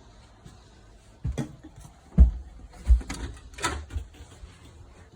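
A series of dull, heavy thumps and knocks, the loudest three at an even walking pace about 0.7 s apart: footsteps on the hollow floor of an RV.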